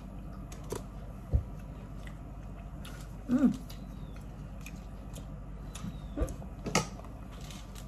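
Close-mic mouth sounds of eating seafood: chewing and smacking, with a couple of short knocks and a brief hummed vocal sound about three and a half seconds in.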